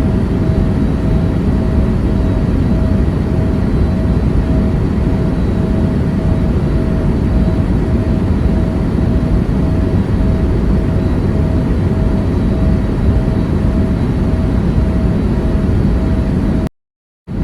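Steady airliner cabin noise in flight: a loud, even rumble of engines and airflow with a faint constant hum above it. It cuts off abruptly near the end.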